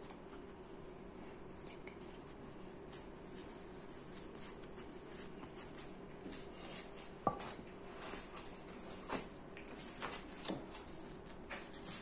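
Light taps, knocks and rubbing as foam pads and a wooden board are handled and pressed together in a Kydex foam press, with one sharp knock about seven seconds in, over a low steady hum.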